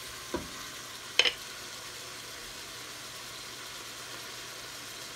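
Covered frying pan of sautéed bottle gourd cooking under its lid, giving a soft, steady hiss. There is a low knock about half a second in and a sharper clink just over a second in.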